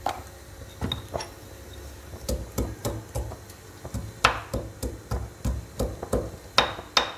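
Metal pestle pounding sliced ginger and garlic in a stone mortar: a run of short sharp knocks, about three a second.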